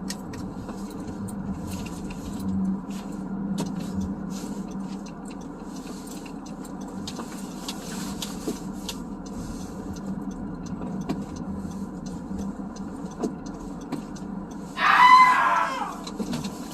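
Steady low hum of a car heard from inside the cabin, with scattered light ticks. About fifteen seconds in comes a short, loud, wavering high squeal.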